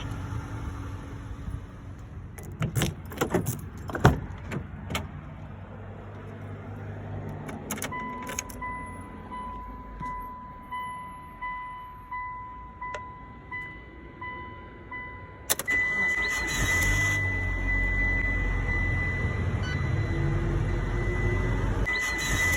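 Mitsubishi Delica D5 being started. First come clicks and knocks, then a pulsing electronic chime over a steady high tone. About fifteen seconds in the engine catches and settles into a steady run, with a thin high tone sounding over it. The start-up is the one where the owner hears an abnormal noise.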